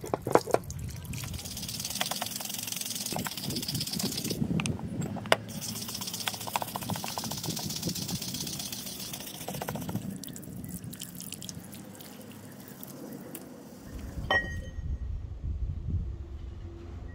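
Water splashing over a steel axe head on a wet wooden board, followed by wet sanding: sandpaper on a wooden block rubbed back and forth across the head. About three-quarters of the way in comes a single metallic clink that rings briefly.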